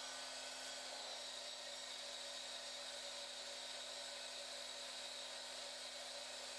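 MX-180D 7x12 mini metal lathe running steadily with aluminum stock spinning in its 3-jaw chuck: a constant high-pitched motor and spindle whine that stays even throughout.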